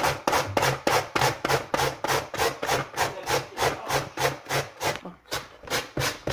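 A carrot being grated by hand on a plastic grater board with a metal grating plate: quick, even rasping strokes, about four a second, with a short pause about five seconds in.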